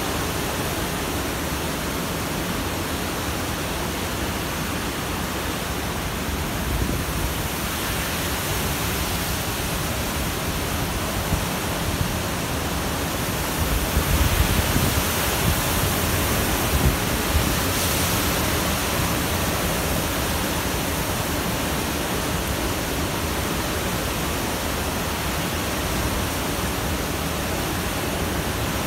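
Cyclone-force wind and heavy rain making a steady, loud rushing noise. It swells in a strong gust about halfway through, with a low rumble and brief peaks.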